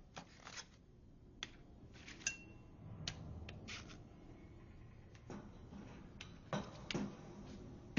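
Glassware and metal lab equipment being handled: scattered sharp clinks and taps, one with a brief glassy ring, over a low steady hum.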